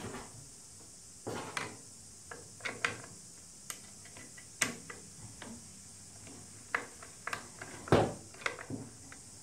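A hand spanner working the main pivot bolt loose on an electric golf trolley's metal frame: scattered metallic clicks and clinks, with the loudest knock about eight seconds in.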